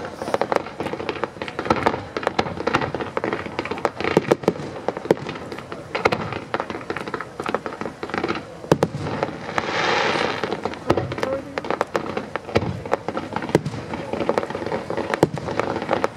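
Firework display: a quick, uneven string of pops and bangs from low fans of gold comets and small aerial shells, with a swell of hissing about ten seconds in.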